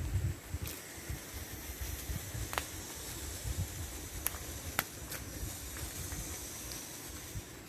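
Footsteps on dry leaf litter and twigs in forest undergrowth, with a few sharp snaps in the middle, over low wind rumble on the microphone and a steady high hiss.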